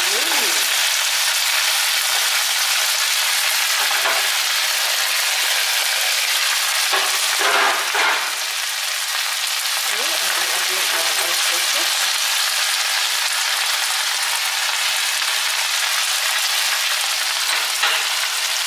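Shredded cabbage and Chinese cabbage sizzling steadily in a hot pan as they are stir-fried with a wooden spatula, with a brief louder rush of sizzle about halfway through.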